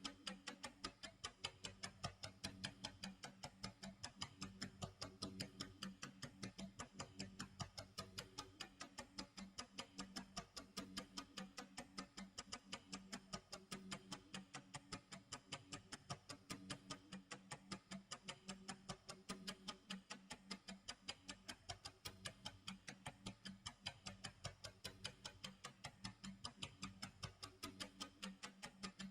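Clock tick-tock sound effect: steady, even ticks, several a second, over a faint low tone.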